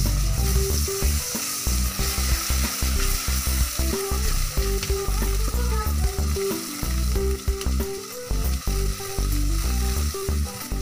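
Dark muscovado sugar and margarine sizzling as they melt in a pot while being stirred, with background music playing underneath.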